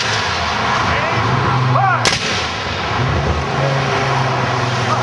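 A single black-powder muzzle-loading musket shot about two seconds in, a sharp crack.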